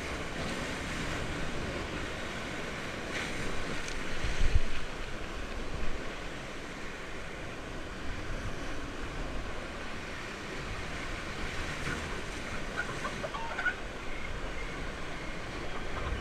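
Rushing, churning water of a river-rapids raft ride around the raft, with wind on the microphone. A brief low thump about four and a half seconds in.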